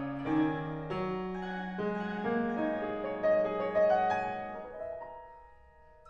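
Grand piano played solo in a contemporary classical piece: a few chords struck in the first two seconds, then a run of single notes, the sound dying away toward the end.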